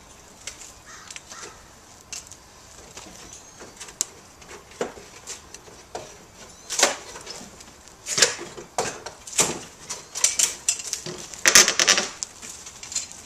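Rotten wooden fence boards and the vines tangled through them cracking, creaking and snapping as they are pulled apart. The cracks come singly at first, then more often, with a dense crackle near the end as the loudest part.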